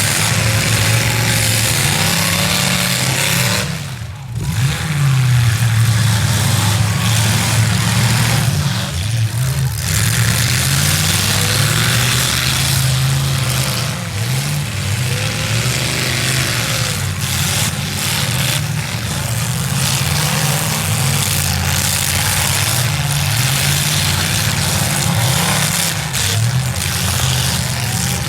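V8 demolition derby car engines running and revving hard, pitch rising and falling over and over, under a constant noisy wash, dropping away briefly about four seconds in.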